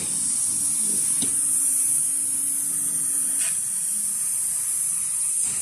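Steady high hiss of the assist gas jetting from the cutting head of a 6 kW CNC fiber laser cutting machine as it cuts sheet metal. A faint low hum stops a little past halfway, and there are a few faint clicks.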